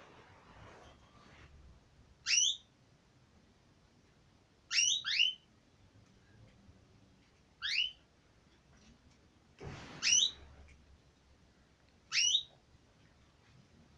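Domestic canary giving short, sharp sweeping call notes, one every two to three seconds, five in all, one of them doubled. A soft rustle comes just before the fourth call.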